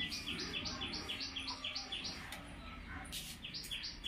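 A small bird chirping rapidly: short high chirps on two alternating notes, several a second, pausing a little past two seconds in and starting again near the end.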